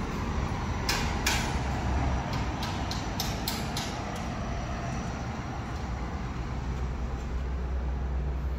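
Outdoor ambience through an open window: a steady low rumble, with a quick run of sharp clicks or knocks from about one to four seconds in.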